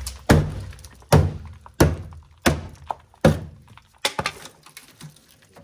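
About six heavy thunks, a little under a second apart, each with a brief ringing tail: a car's rusted rear body panels being struck to break away rotten metal and filler.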